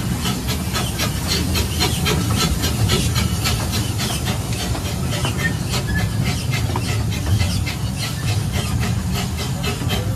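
Miniature park train running along its track: a rhythmic hissing beat, about four strokes a second, over a steady low rumble.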